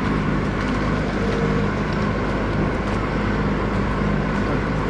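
Skid steer engine running steadily with a low, even hum.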